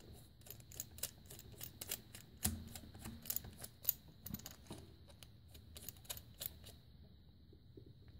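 Faint, irregular clicks and ticks, several a second, as a knurled aluminium cap is screwed by hand onto a camera ball-head adapter; they stop about seven seconds in.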